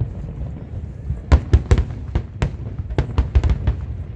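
Fireworks display: aerial shells bursting in a quick series of sharp bangs over a low rumble. The bangs come in a cluster a little over a second in and another around three seconds in.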